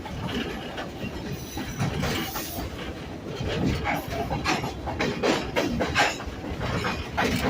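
Passenger train rolling along the track, heard from aboard one of its cars: a continuous rumbling ride noise that grows louder and busier in the second half.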